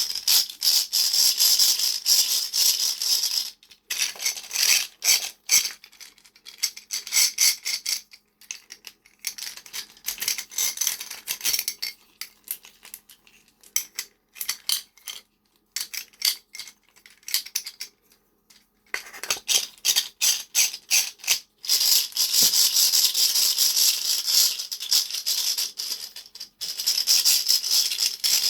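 Beads of a handheld bead toy rattling and clicking against each other as it is shaken and turned. The clicking comes in long dense spells with brief breaks and a sparser, quieter stretch in the middle.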